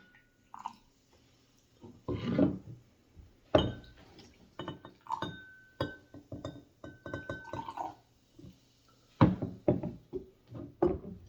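Glass clinking and knocking as a soda bottle and small cups are handled: a string of sharp taps, several with a short ringing tone, and a couple of brief hissing swells.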